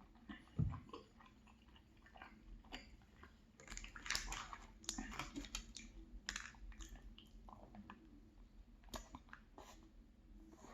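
Close-up chewing of a soft bakery muffin: wet mouth clicks and smacks, busiest midway through. There is a single low thump under a second in.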